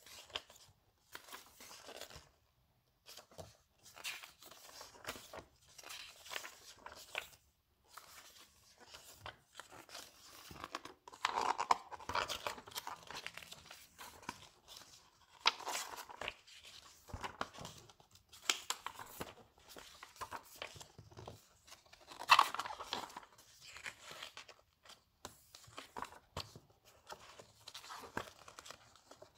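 Glossy photobook pages being turned and flipped by hand: irregular paper swishes and rustles, a few of them louder than the rest.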